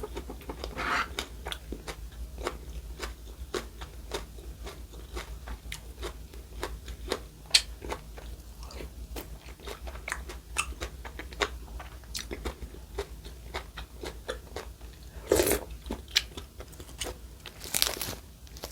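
Close-miked crunchy chewing and biting: a run of irregular crisp crunches and clicks, with two longer, louder crunches near the end.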